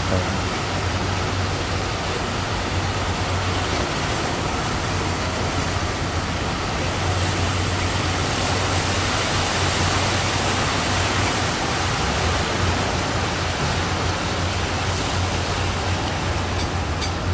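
Steady roar of sea surf and wind on the microphone, with a low steady rumble underneath. Near the end comes a quick run of sharp clicks, several a second.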